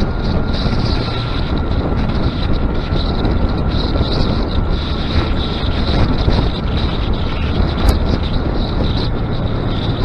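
Honda Grom's small single-cylinder engine running steadily on the move, mixed with wind rushing over the action camera's microphone. A single sharp click about eight seconds in.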